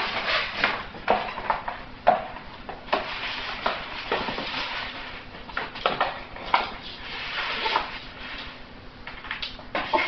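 Cardboard rustling, scraping and tearing in irregular bursts as a West Highland White Terrier tugs and noses at a torn-open box.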